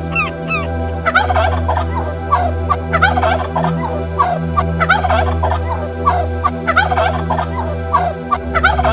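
Birds calling: a regular string of short repeated calls for about the first second, then a dense chorus of many overlapping short calls, over a steady low hum.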